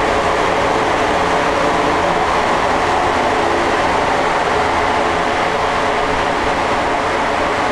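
1989 Porsche 911 Carrera's air-cooled 3.2-litre flat-six running steadily on a chassis dynamometer, heard through a twin-exit exhaust. The engine note holds level, with no rise in revs.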